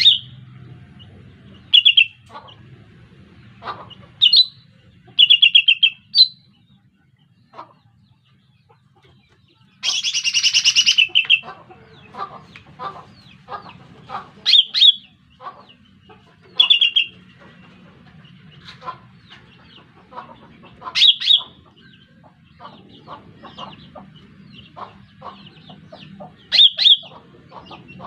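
Lesser green leafbird (cucak ijo mini) calls played as a bird-trapping lure: short, loud, sharp calls every second or two, with a longer chattering burst about ten seconds in and fainter ticking calls in between.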